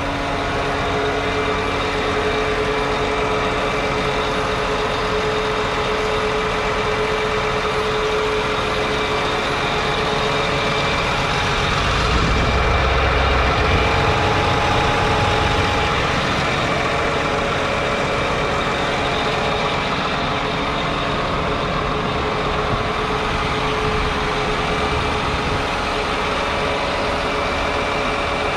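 John Deere 8RX410 tractor's 9.0-litre six-cylinder diesel running steadily with a high whine over it, swelling louder and deeper for a few seconds about twelve seconds in.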